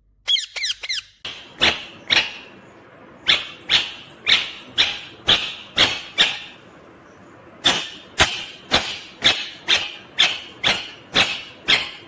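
Rose-ringed parakeet giving a few short whistles, then harsh, loud screeches repeated about two a second in three runs.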